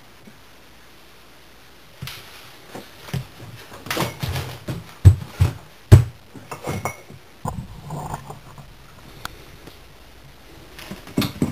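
A series of scattered knocks and clunks, with two sharp, loud ones about five and six seconds in.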